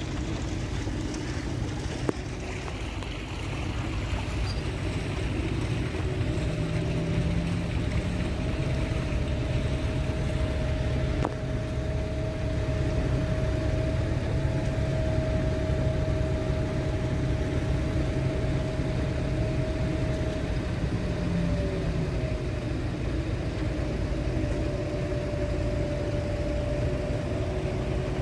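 Heavy diesel construction machinery running steadily at a concrete pour for bored piles, a deep engine rumble with a thin steady whine over it for much of the time. A single sharp click about two seconds in.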